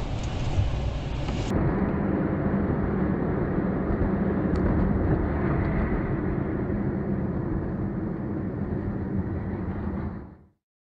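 Steady road and engine noise of a car driving, heard from inside the cabin by a dashcam, with an abrupt change in tone about a second and a half in. It cuts off shortly before the end.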